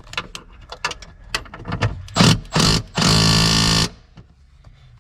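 Cordless impact driver running seat bolts down: a few clicks of the socket being fitted, two short blips of the trigger, then one steady run of about a second.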